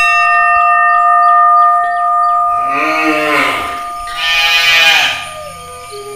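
Two drawn-out moos from cattle, the first about two and a half seconds in and the second about four seconds in, each rising and then falling in pitch. They sound over a steady ringing tone that fades out near the end.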